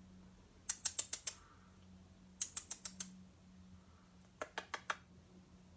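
Lovebird inside a cardboard tissue box, nibbling at the cardboard with its beak: three short bursts of quick sharp clicks, about two seconds apart.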